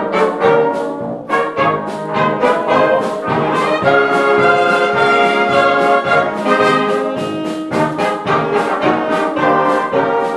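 Brass orchestra playing a lively piece of short, rhythmic chords, with longer held chords in the middle.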